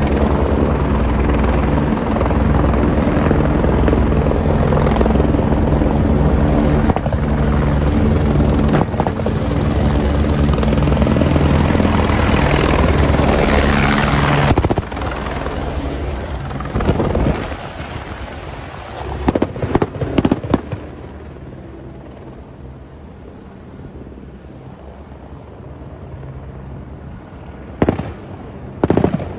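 Light helicopter hovering close, its rotor and turbine running steadily and loud. About halfway through the sound drops to a quieter, more distant helicopter, broken by several short clusters of sharp bangs.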